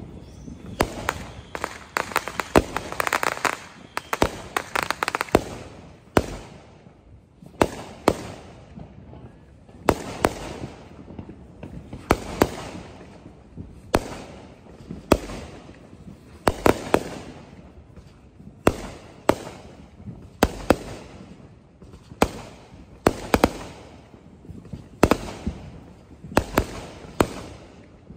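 Fireworks display: aerial shells bursting one after another, a sharp bang every second or two, each trailing off in an echoing rumble. A quick run of crackling pops comes a few seconds in.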